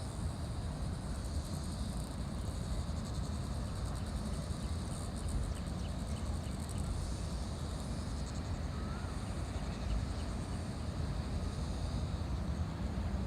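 Insects, crickets or cicadas, trilling steadily in high bands, with a faster pulsing stretch around the middle, over a steady low rumble.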